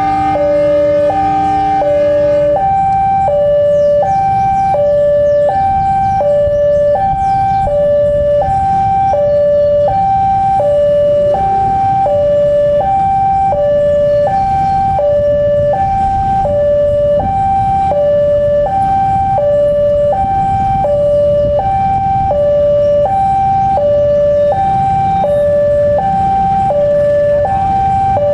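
A two-tone electronic warning alarm alternates high and low, one high-low cycle a little over a second, without a break. Under it is the low rumble of the CC 203 diesel locomotive's engine idling. A chord-like horn cuts off about two and a half seconds in.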